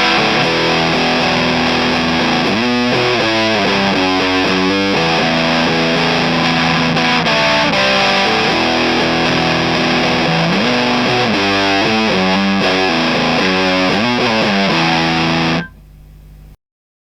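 Electric guitar played through a Madbean Sprout fuzz pedal, a clone of the Colorsound One Knob Fuzz, with the guitar's volume full up: heavily fuzzed sustained notes and riffs. The playing stops abruptly about a second before the end.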